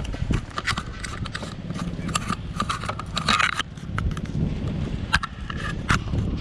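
Handling noise on the GoPro's own microphone: irregular plastic clicks and scrapes as the camera is fitted onto a handheld grip, over a steady low rumble.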